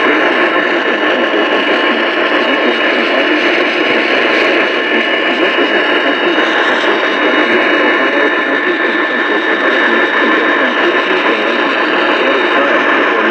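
AM radio static: a steady, loud rushing hiss with a few faint steady whistles over it and no clear programme audio.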